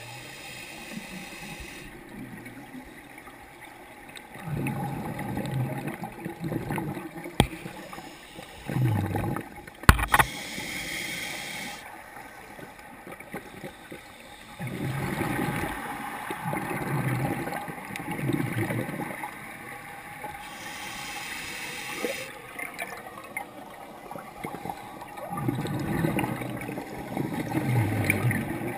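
Scuba diver breathing through a regulator underwater: three long hisses of inhaled air through the demand valve, and between them repeated low, gurgling bursts of exhaled bubbles. A single sharp click sounds about ten seconds in.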